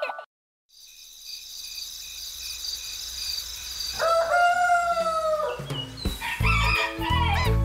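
A rooster crows once, a long call of about a second and a half about four seconds in, over a steady high chirring. Cartoon music with a heavy beat and bird chirps starts about six seconds in.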